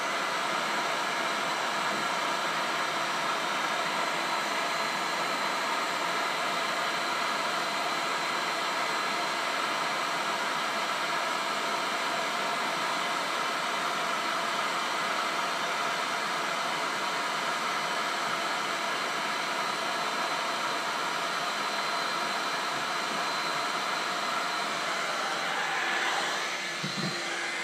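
Electric heat gun, set to 180, blowing hot air steadily with a faint whine from its fan, heating the sides of an iPhone. Its level dips slightly and the sound changes near the end as the gun swings away.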